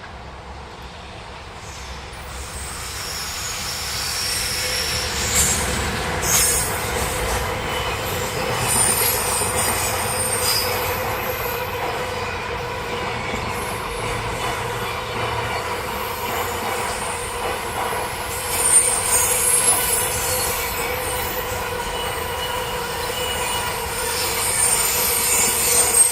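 A train running past at close range, growing louder over the first few seconds and then staying loud, with its wheels squealing high against the rails.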